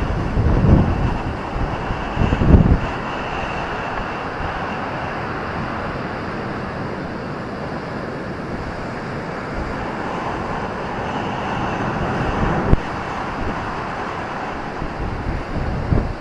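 Ocean surf washing steadily onto a beach, a continuous rushing noise that swells for a while past the middle, with wind buffeting the microphone in the first few seconds.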